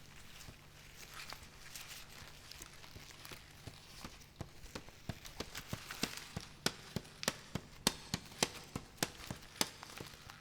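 A train of sharp clicks or taps, about two a second, growing louder in the second half, over a low steady hum.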